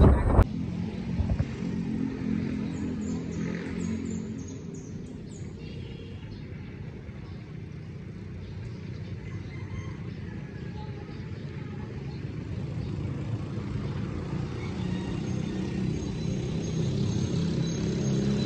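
Motorcycle engine running under the rider. It is quietest through the middle and builds again toward the end, as if the bike eases off and then picks up speed.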